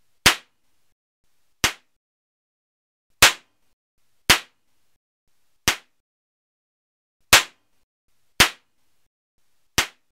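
Toy cap gun firing eight single sharp cracks at uneven gaps of about one to one and a half seconds, each dying away quickly.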